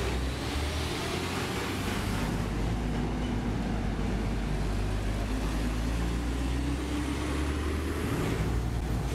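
Heavy diesel truck engine running, a steady low drone under an even wash of noise.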